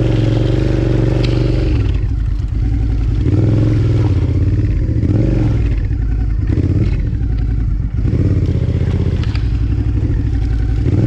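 Suzuki V-Strom 650's V-twin engine running as the bike is ridden along a muddy track, its revs rising and falling with the throttle. A few sharp clicks sound over it.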